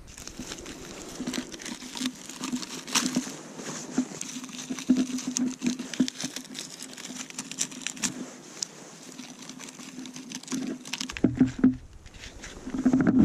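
Dry bark tinder crackling and rustling as it is handled and pushed by hand into the splits of a log, with many small irregular snaps and clicks. Near the end the handling gets louder and fuller.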